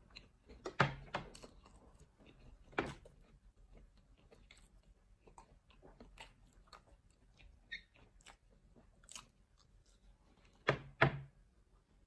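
Pizza being chewed close to the microphone: soft wet mouth clicks and crust crunching, with a few louder bursts about a second in, near three seconds and near the end.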